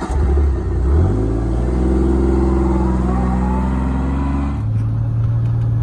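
Kawasaki side-by-side utility vehicle's engine pulling away, rising in pitch over the first couple of seconds and then running steadily. A little before the end it shifts abruptly to a lower, steadier note.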